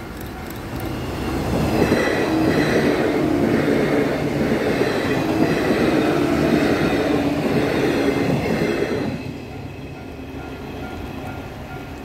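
A JR West 115 series electric multiple unit running past close by. Its wheels beat out a clickety-clack over the rail joints under a steady rumble, rising about a second in and falling away about nine seconds in. A level-crossing bell keeps ringing behind it, heard clearly once the train has gone.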